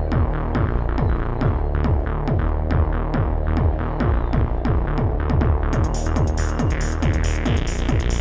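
Live techno: a steady kick drum at about two beats a second under a deep bass and synths. About five and a half seconds in, a bright, hissing high end opens up over the beat.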